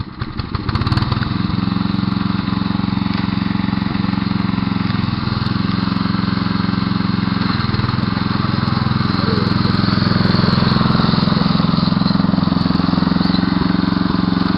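Riding lawn mower's small engine comes up to speed in the first second, then runs steadily as the mower drives across the lawn.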